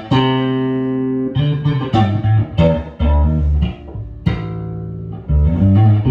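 G&L Fallout short-scale passive electric bass played on its pickup's single-coil setting, volume and tone fully up: one held note, then a run of separately plucked notes.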